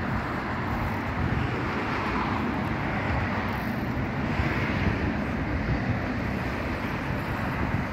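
Steady outdoor background noise: a low rumble and hiss, with wind buffeting the microphone.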